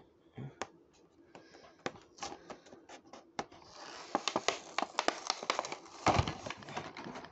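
Hands handling a Hot Wheels 5-pack's cardboard box and clear plastic window: scattered light clicks and taps at first, then from about halfway a steadier rustling and scratching with many clicks as the packaging is worked open.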